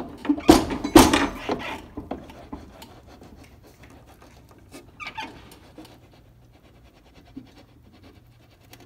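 Hand-work on lawn tractor steering parts as the steering shaft is pushed into its bushing beside the sector gear. Two sharp metal knocks come about half a second apart near the start, with scraping around them, and fainter clicks and rubbing follow about five seconds in.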